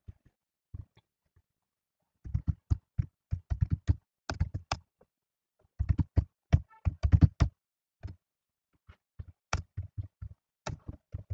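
Computer keyboard typing: quick runs of keystroke clicks, the densest a couple of seconds in and again around the middle, thinning to scattered keypresses near the end.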